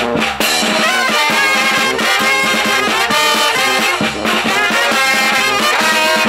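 A Mexican banda de viento (wind band) playing loudly and steadily, brass and wind instruments carrying a busy melody over a steady beat.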